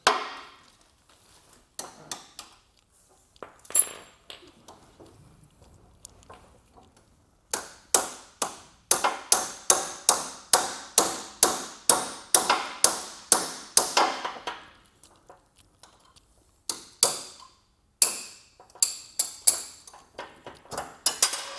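Hammer striking the pin of a steel SC78 conveyor chain's master link to drive it out: a quick run of ringing metal-on-metal blows, about three a second, lasting some seven seconds in the middle, with scattered taps and clinks of tools on the chain before it and a few more blows near the end.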